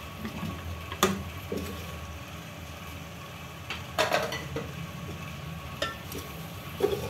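Several sharp clinks and knocks of metal cookware and a spatula, an aluminium pressure cooker and pot being handled, over a low sizzle of tomato masala cooking on the stove.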